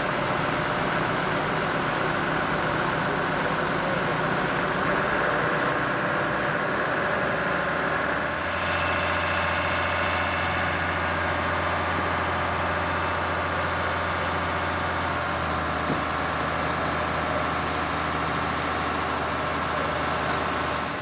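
Fire engines running steadily, a constant mechanical drone with hiss. A deeper low hum joins in about eight seconds in.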